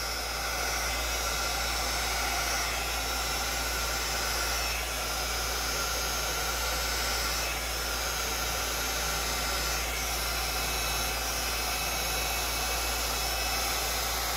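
Handheld heat gun running steadily, its fan blowing hot air over wet epoxy resin, with small shifts in level as it is moved over the surface.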